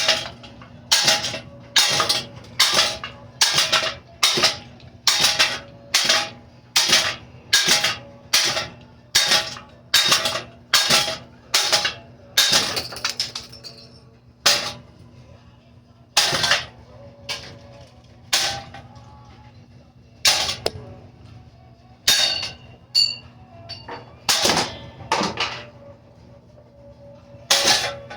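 A ceiling fan being struck over and over, each hit a sharp bang with a short clanging ring: a quick, even run of blows, about three every two seconds, that gives way about halfway through to slower, irregular hits.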